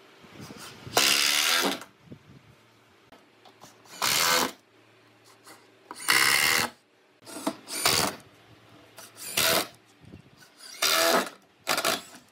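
Cordless power drill driving screws into wood, in about eight short bursts of under a second each.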